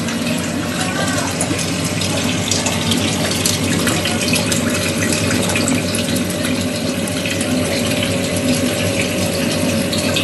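Water running and trickling through an aquaponics system's PVC grow pipes, a steady continuous splashing with a steady hum underneath.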